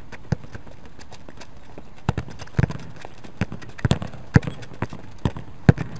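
Soccer balls being kicked with the instep into a practice wall: a series of sharp thuds at irregular intervals as the balls are struck, hit the board and bounce back on the asphalt, the loudest near the end.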